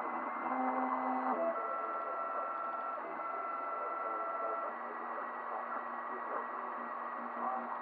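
FDM 3D printer printing, its stepper motors whining in steady tones that jump to a new pitch with each move of the print head, over a steady mechanical whir.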